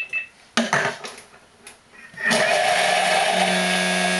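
Thermomix TM31 beeping briefly as it is set, then a few clicks. About two seconds in its motor starts at speed 7 with a loud, steady whir, the blade chopping an onion. About a second later a steady low hum comes in as the blade begins to run free, which is the sign that the onion is finely chopped.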